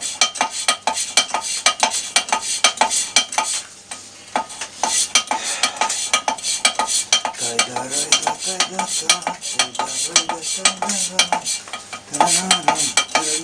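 Exhaust valve of a Moskvich 412 cylinder head being hand-lapped into its seat with diamond paste: a quick, gritty back-and-forth scraping, about three strokes a second, with a brief pause about four seconds in. The lapping is grinding away pitting on the valve face and seat.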